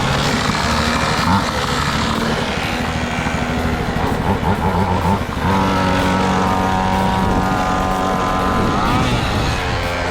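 Pocket bike's small two-stroke engine running; about halfway in it steps up to a steady high rev, then drops back near the end. The bike is running badly, with a slack chain.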